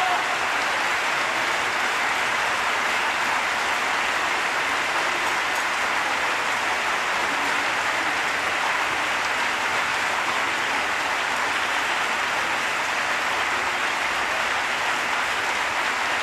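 Theatre audience applauding, a steady unbroken clapping that holds at the same level throughout.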